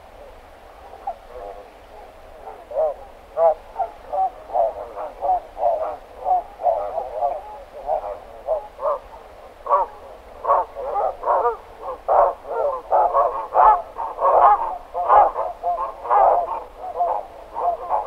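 Barnacle geese calling from a roosting flock: many short, overlapping calls that grow busier and louder about halfway through.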